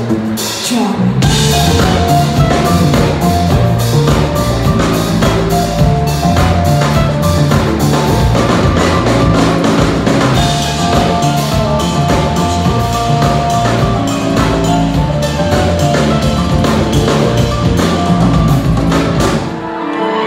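Live band playing an instrumental passage, with drum kit and bass guitar driving a steady beat under guitar. The full beat comes in about a second in and drops away near the end.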